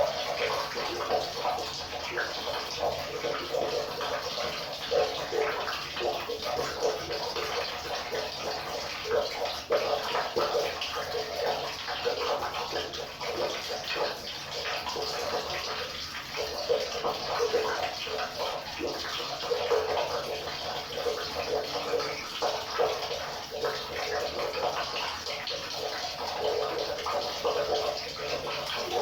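River water flowing: a steady rush with constant small gurgles.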